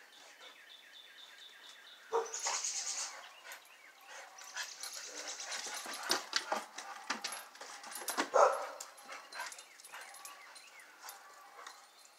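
Dogs playing, one of them barking and vocalising in short irregular bouts, loudest about eight seconds in.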